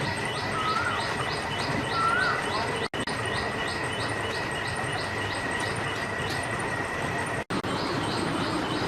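Outdoor ambience: a steady noisy background with a rapid, regular high chirping of about three pulses a second, a steady high whine and a couple of short bird calls early on.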